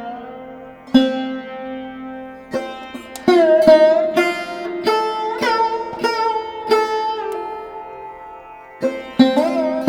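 Background music: a plucked string instrument playing a slow melody, its notes sliding and bending in pitch, over a low steady drone.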